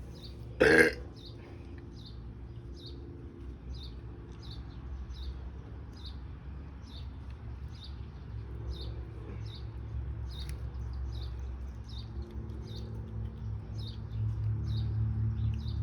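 A small bird chirping over and over, a short high chirp about three times every two seconds, over a low rumble; one loud sharp noise about a second in.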